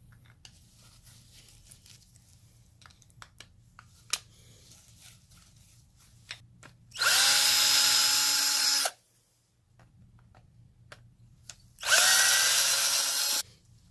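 Power drill-driver backing out cover screws in two short runs, about two seconds and then a second and a half, the pitch rising as the motor spins up each time. Light handling clicks come before.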